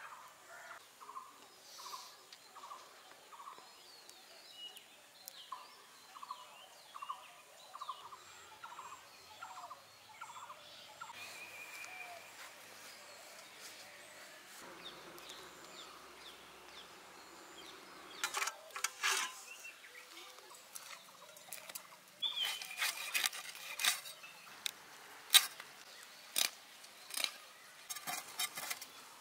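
Outdoor village ambience with birds calling. One bird repeats a single short note about three times a second in two runs near the start. Later there are scattered sharp clicks and knocks.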